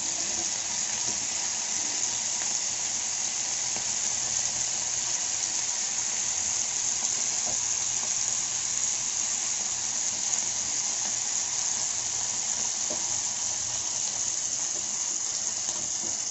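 Whole masala-coated jilebi fish (tilapia) shallow-frying in oil on a flat dosa tawa, with a steady, even sizzle.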